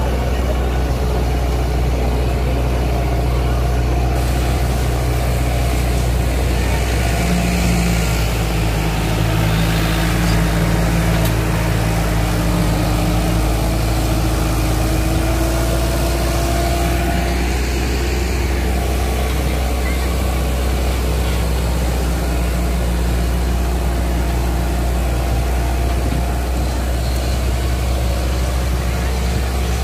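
Preet 5049 tractor's diesel engine running steadily under load as it pulls a full-open disc harrow through the soil, with a deep hum and a slight waver in pitch near the middle.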